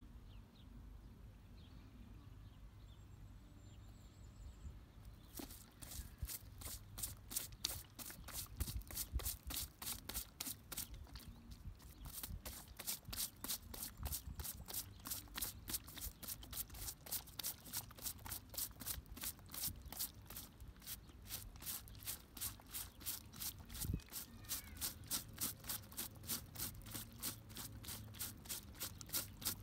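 Cleaning brush scrubbing the sole and studs of a rugby boot in quick, even back-and-forth strokes, about four a second, starting about five seconds in. A low wind rumble on the microphone runs underneath.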